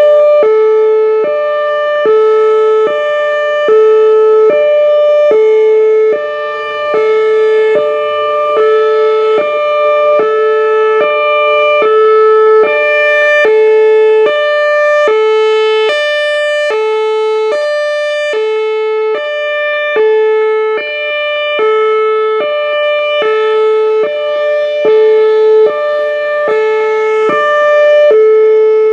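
Outdoor warning siren sounding a hi-lo tone, two steady pitches alternating about once a second, its loudness swelling and fading every few seconds.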